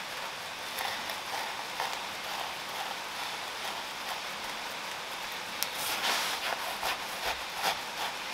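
Gloved fingers pressing coarse sea salt and brown sugar cure into a salmon fillet on a wooden board: gritty crunching of the crystals with irregular light taps, busier in the second half, over a steady hiss.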